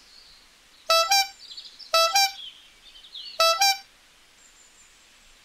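Mobile phone ringing for an incoming call: a short electronic ringtone of two quick notes, repeated three times about a second apart.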